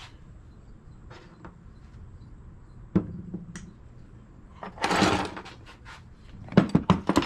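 Metal engine parts being handled on a bench during a teardown: a single knock about three seconds in, a short scraping rattle near five seconds, then a quick run of sharp clinks near the end.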